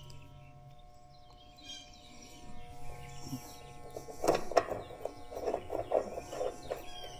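Small birds chirping, with a run of light sharp clicks and rattles starting about four seconds in.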